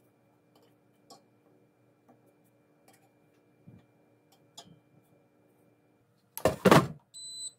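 Metal fork clicking lightly against banana chips and the air fryer's perforated basket as the chips are turned over, then a loud clatter lasting about half a second as the basket is pushed back into the air fryer, followed by one short high electronic beep from the air fryer.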